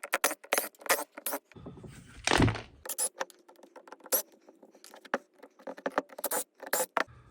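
Irregular sharp clicks and light rattles of small hard parts being handled, with a brief noisy scrape or whir about two seconds in.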